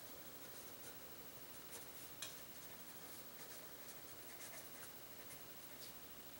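Pencil writing on paper: faint, irregular scratching strokes, with a slightly sharper tick about two seconds in.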